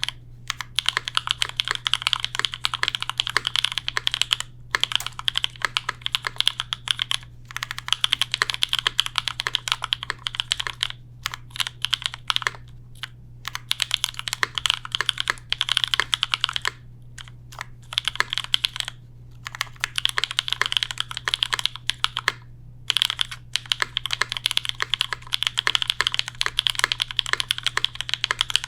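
Typing on a J-02 custom mechanical keyboard with Raeds switches lubed with 205g0 and 105 and filmed, a carbon fiber plate and GMK keycaps: fast, continuous key clicks in runs of a few seconds, broken by brief pauses. A steady low hum sits underneath.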